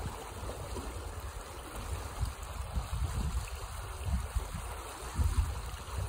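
Fast-flowing water rushing along an earth channel, a steady rushing hiss, with low gusty rumbles of wind on the microphone now and then.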